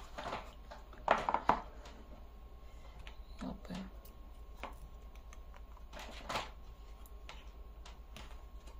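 Handling noises from unboxing a smartphone: the cardboard box lid and phone tray knocked and slid on a table, a few short knocks and scrapes, loudest about a second in and again around six seconds.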